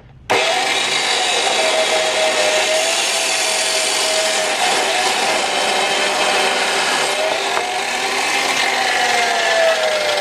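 Milling machine running and cutting metal to square up a part: a loud, steady grinding hiss that starts suddenly, with a whine that wavers in pitch and falls near the end.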